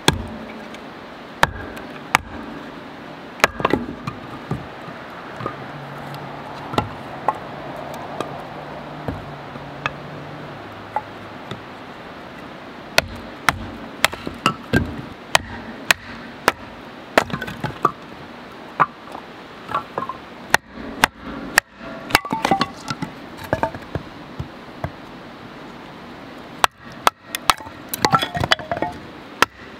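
Firewood being split by batoning: a fixed-blade knife is driven through logs by blows from a wooden baton, giving sharp wooden knocks and cracks at irregular intervals, some in quick runs, over a steady background hiss.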